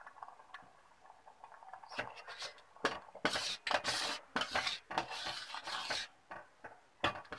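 Metal ladle stirring thickened milk in a metal pot, scraping and clinking against the pot's sides and bottom. The stirring starts about two seconds in and pauses briefly near the end.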